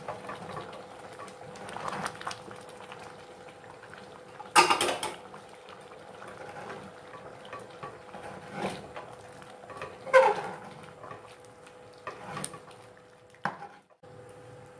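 Steel spoon stirring wet rice in an open pressure cooker, scraping through the mixture with several metal clanks against the pot, the loudest about ten seconds in. A faint steady hum runs underneath.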